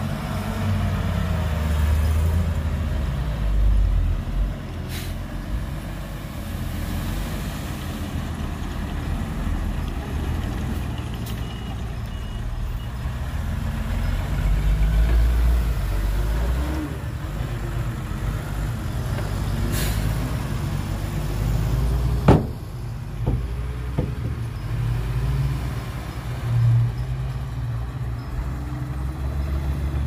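Heavy diesel engine of an earthmoving truck or dozer running, its revs rising and falling. One sharp knock about 22 seconds in, followed by a few smaller knocks.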